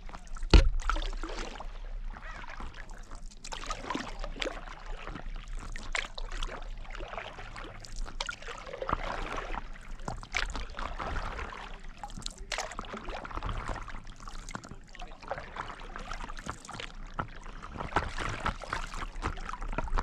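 Stand-up paddleboard paddle dipping and pulling through lake water, with irregular splashing and water lapping against the board, and one sharp knock about half a second in.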